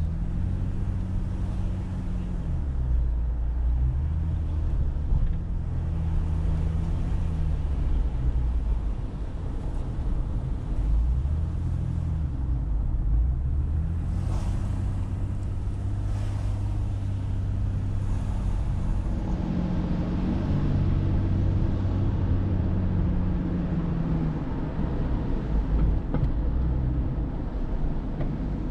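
A car being driven: steady engine and road noise, the engine note shifting up and down in pitch now and then.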